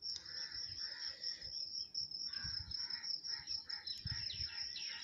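Steady high-pitched insect chirring, with faint intermittent chirps over it.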